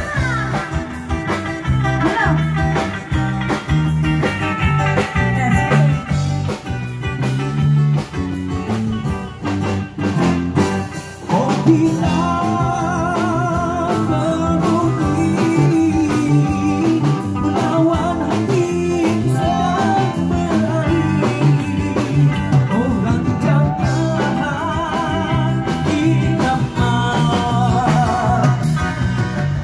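Live band playing an upbeat pop song on electric guitar, bass and drum kit, with a singer on a microphone over a steady beat.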